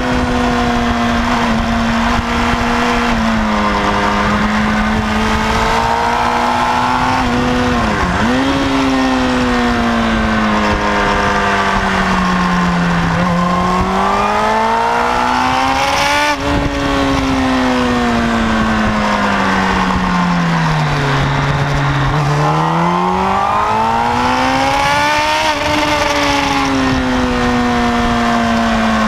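Kawasaki ZX-10R's inline-four engine heard from the rider's seat under hard riding on a track: its pitch climbs under acceleration and falls when braking for corners. There is a sharp dip and recovery about eight seconds in and the lowest revs near two-thirds through, all over a steady wind rush.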